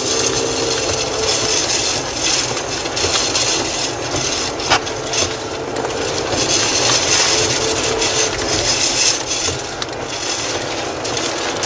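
Steady rushing noise inside a moving car on a wet highway: tyres on the wet road and wind and rain against the car, with a faint hum that comes and goes and a few light clicks.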